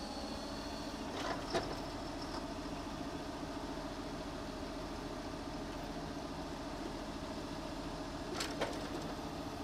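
Tractor engine idling steadily while its hydraulics fold a Pöttinger rotary tedder in for transport.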